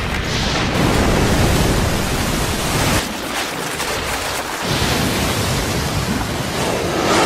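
Anime explosion and debris sound effects: a loud, sustained rushing noise of blasting rock and dust. It eases about three seconds in, then builds again and is loudest near the end.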